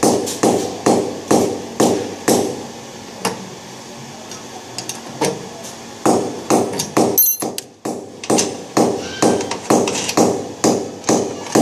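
Regular sharp knocking strikes, about two a second, each ringing briefly. They ease off for a couple of seconds a few seconds in, then resume.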